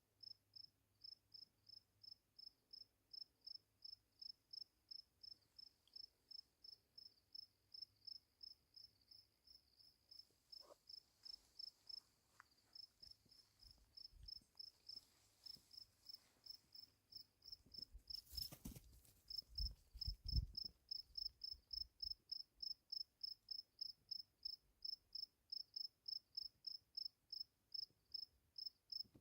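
A short high-pitched chirp repeating steadily about twice a second, a night caller that the camper takes for a tree frog starting to call. A few soft low thumps come about two-thirds through.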